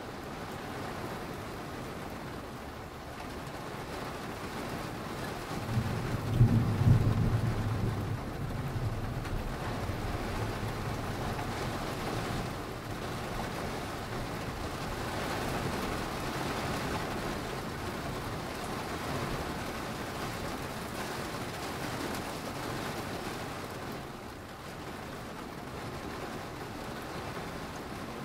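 Steady rain falling, with one roll of thunder about six seconds in. The thunder is loudest for a second or two, then rumbles off under the rain.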